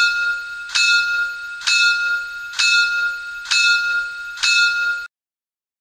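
Locomotive bell sound from the sound decoder of a PIKO N-scale BR 82 steam locomotive model (function F4). One high bell struck about once a second, six strikes, each ringing on until the next, stopping abruptly about five seconds in.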